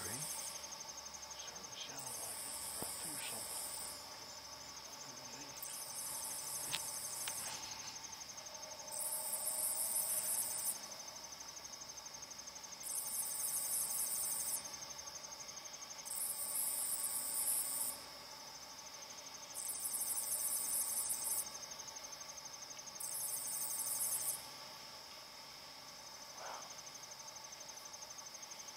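Night insects calling: a steady high trill, with a louder, high, rapidly pulsed call coming in bursts of a second and a half to two seconds, about every three and a half seconds, seven times. A few faint short clicks are heard among them, one near the end.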